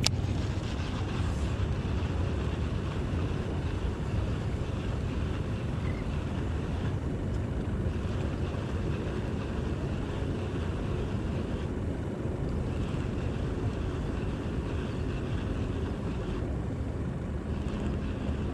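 Steady low wind rumble on the microphone out on open water, with no distinct events.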